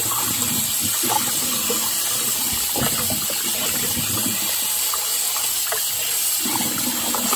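Kitchen tap running steadily into a sink while raw chicken pieces are rinsed and rubbed by hand under the stream, with irregular splashing and sloshing of the pieces against each other and the sink.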